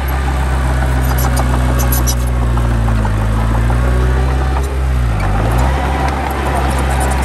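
Heavy diesel engine of earthmoving machinery running steadily, its pitch dipping briefly about five seconds in, with faint clicks a second or two in.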